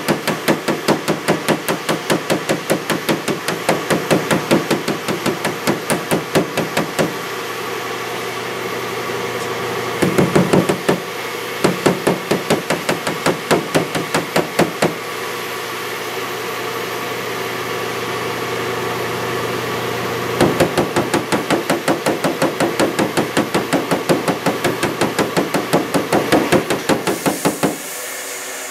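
Body hammer tapping rapidly on a dented aluminum car hood, about four blows a second, in several runs with pauses between them, over a steady background hum.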